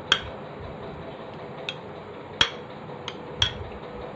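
A metal spoon clinks against the side of a glass bowl while stirring watermelon rind pieces in sugar syrup: five sharp clinks at uneven intervals, each with a short ring.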